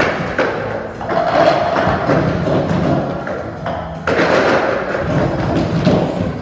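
Group of children knocking plastic cups on a wooden floor in time with music, a cup rhythm game, the many cups making repeated thumps and taps over the beat.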